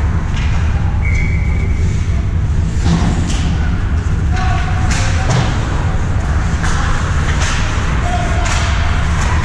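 Ice hockey play: sharp clacks and thuds of sticks, puck and skates, a few loud ones about three and five seconds in, with scattered player voices over a steady low rumble.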